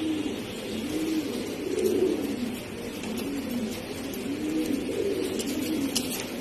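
Pigeons cooing: repeated low coos that rise and fall in pitch, a little under one a second, several birds overlapping.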